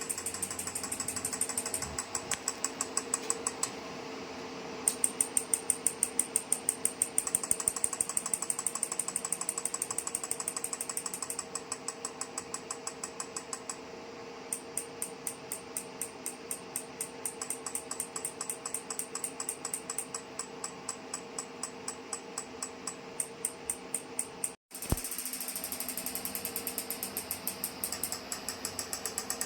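Magnetic physiotherapy handle pulsing: rapid, evenly spaced clicking that pauses and starts again at changing rates, over a steady hum from the machine.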